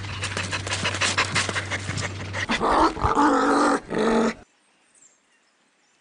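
Dog panting in quick, rapid breaths over a steady low hum, then a few short, louder pitched dog vocal sounds; it all cuts off suddenly about four and a half seconds in.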